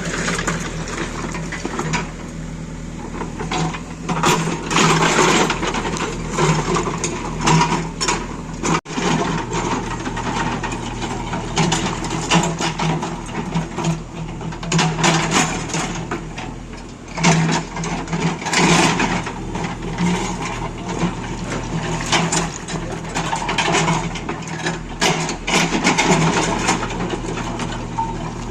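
A heavy machine's diesel engine running steadily, with repeated irregular bursts of scraping and crunching over it, cut off briefly once by an edit.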